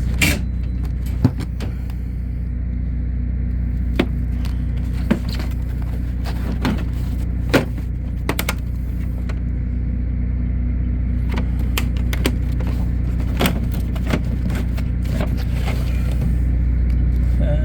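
A steady low mechanical hum runs throughout, with scattered light metallic clicks and clinks of hand tools, such as pliers, being handled in a steel tool-chest drawer.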